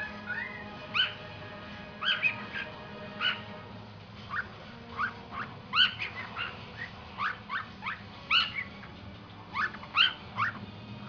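Cockatiel imitating dogs barking: a run of short, sharp, high-pitched yapping calls in irregular bunches.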